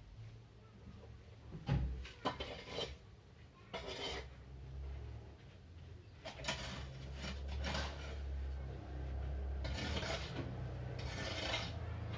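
Irregular rasping and rubbing noises in short, uneven bursts over a steady low hum.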